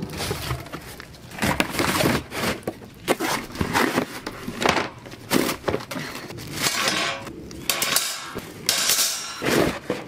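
Barbecue grill packaging being torn open and handled: cardboard and plastic wrap crinkling and scraping in irregular bursts, with metal grill parts clattering now and then.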